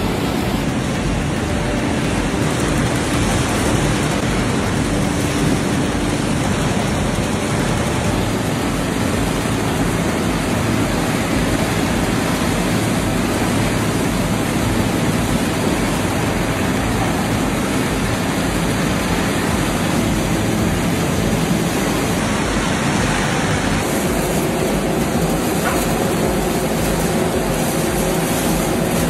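Steady, loud noise of matchstick-making machinery running, a green splint tray and a cleated conveyor belt carrying loose wooden matchsticks, with a faint underlying hum.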